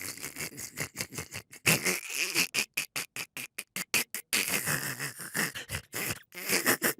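A person's 'donkey laugh': laughter imitating a donkey's bray, a long run of short, rapid breathy pulses with high pitched stretches.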